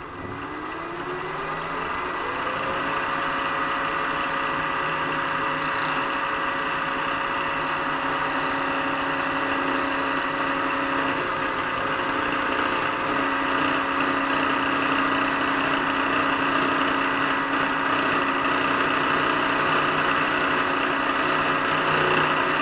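Milling machine spindle spinning up to 1850 RPM, a whine rising over the first couple of seconds, then running steadily while a homemade dovetail cutter cuts a hand-fed brass workpiece.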